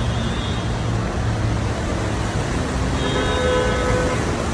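Street traffic on a flooded road: a steady wash of engine and water noise, with a car horn sounding for about a second near the end.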